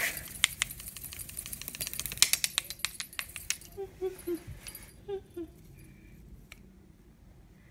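Cat teaser toys with tinsel strands being jiggled against a stone floor: rapid clicking, jingling and crinkling that stops about three and a half seconds in.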